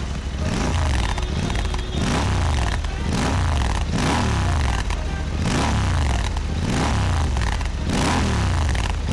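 Royal Enfield Interceptor 650's parallel-twin engine revved through an AEW TE102 slip-on exhaust with its dB killers fitted, the throttle blipped about once a second so the pitch rises and falls each time.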